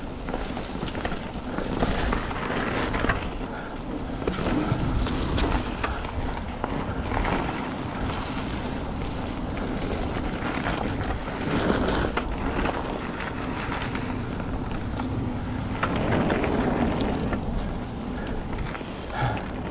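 Mountain bike riding fast down a dirt trail: wind rushing over the action camera's microphone, with frequent small knocks and clatters from the tyres and bike over the ground.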